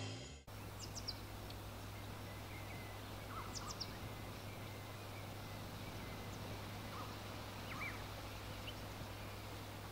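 Faint outdoor ambience with a steady low hum and a few short, scattered bird chirps, after background music cuts off in the first half second.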